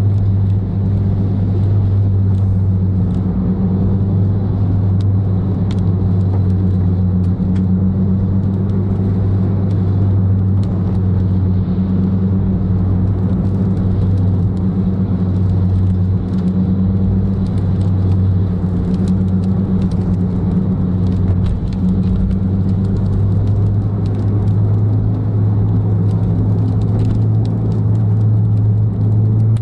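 Car engine and road noise heard inside the car's cabin while cruising: a steady drone at constant revs.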